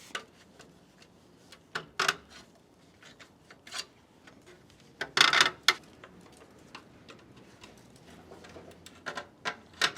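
Flathead screwdriver prying off a car's hubcap: scattered clicks and scrapes, with a louder clatter of knocks about five seconds in.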